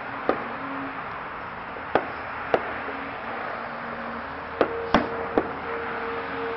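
Six sharp knocks at uneven intervals over a steady hiss, the loudest about five seconds in, with a faint steady tone coming in after about four and a half seconds.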